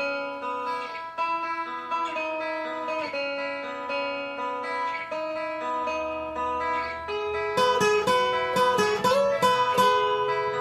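Background music of plucked guitar: slow sustained notes, becoming more rhythmic with sharper plucked notes and a low bass from about seven seconds in.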